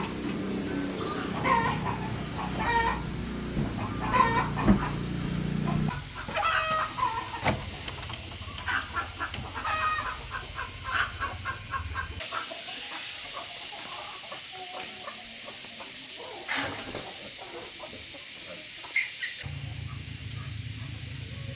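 Chickens clucking, with a run of high cheeps about six seconds in.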